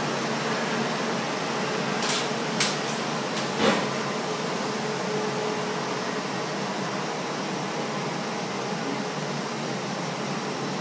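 Bronze-melting crucible furnace running with a steady rushing noise, broken by three sharp metal clinks about two to four seconds in as an iron rod strikes the crucible of molten bronze.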